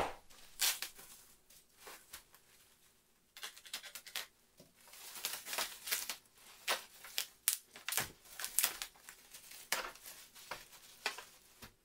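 Clear plastic packaging crinkling and rustling in quick, irregular crackles as it is pulled off a wrapped RC jet elevator. It is sparse at first and grows busy from about three seconds in.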